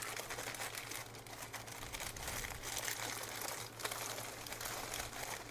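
Plastic cracker packaging crinkling and crackling as it is handled, with a faint steady low hum underneath.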